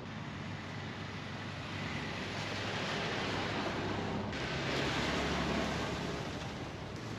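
Wind blowing across open grassland and over the microphone, a steady noise that swells from about two seconds in and eases off near the end.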